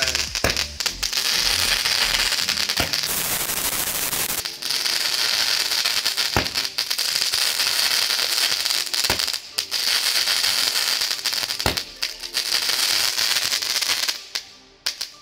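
A 25-shot crackling firework cake firing: a continuous dense crackle, with a sharper crack about every three seconds as each shot goes up, five times. It dies away about fourteen seconds in.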